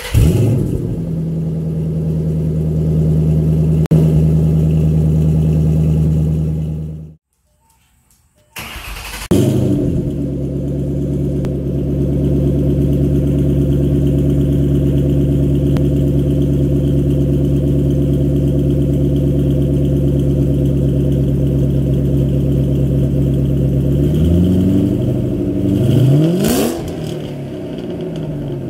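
Shelby GT500's supercharged V8, breathing through a freshly fitted off-road H-pipe with no catalytic converters, dropping from its start-up flare into a loud, steady idle. The sound stops about a quarter of the way in; the engine then starts again with a flare and idles steadily, and near the end it is revved twice before settling back to a lower idle.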